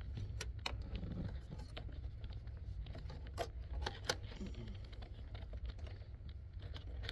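Light plastic clicks and taps of hands working behind a 1984 Jeep Grand Wagoneer's instrument cluster, pulling bulb sockets and connectors, over a steady low hum. A couple of sharper clicks come about halfway through.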